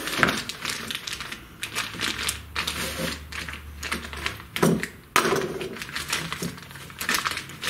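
Plastic packaging sleeve crinkling and rustling as it is cut open and peeled back from a linear guide rail, with irregular small clicks and taps and a louder knock a little under five seconds in.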